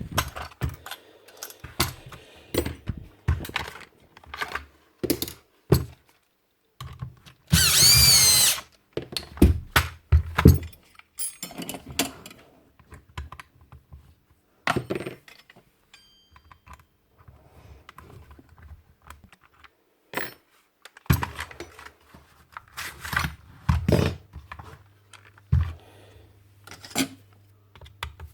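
Clicks, knocks and metal rattles of hand tools and parts as a Paslode IM350+ nailer is taken apart. A small power tool motor whirs for about a second, about eight seconds in.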